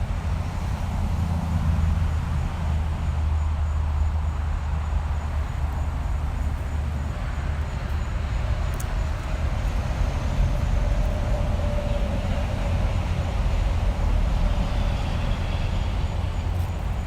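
Road traffic ambience: a steady, continuous low rumble of passing vehicles, with a faint whining tone coming in about ten seconds in.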